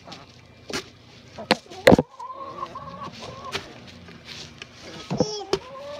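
Backyard hens clucking in short, low calls while they peck at a broken pumpkin, with several sharp pecking knocks. The loudest knock comes about two seconds in.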